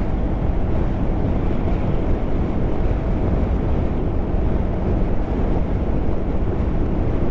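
Wind rushing over the microphone of a helmet camera at about 90 km/h, with a TVS Apache RR 310's single-cylinder engine running steadily at cruising speed underneath.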